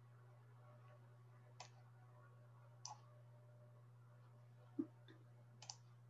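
Near silence over a steady low hum, with a few faint computer-mouse clicks and one soft low knock.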